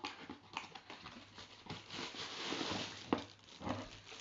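Packaging being handled as items are lifted out of a cardboard box: a rustle through the middle and a few sharp taps and knocks.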